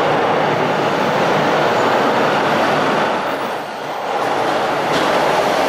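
A TTC subway train pulling into an underground station, with the steady rumble of wheels on the rails that dips briefly a little past halfway and then builds again as the cars come alongside.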